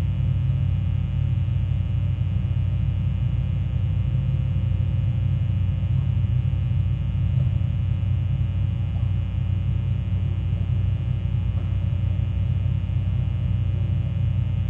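A steady low-pitched drone with many overtones, holding the same pitch and loudness throughout.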